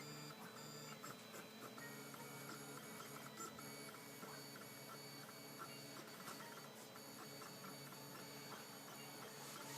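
Stepper motors of a Prusa i3-style RepRap 3D printer whining as the print head makes a run of quick moves, giving a string of short pitched tones that change from move to move.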